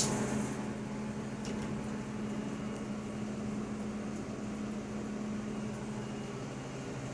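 Steady low hum of a Haas CNC milling machine running.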